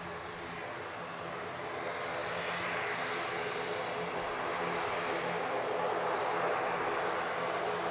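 Boeing 737's jet engines heard from a distance as a broad rushing noise, growing louder from about two seconds in as thrust is brought up for the takeoff roll, then holding steady.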